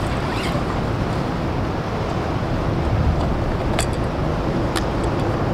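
Steady low outdoor rumble, with two light clicks about four and five seconds in.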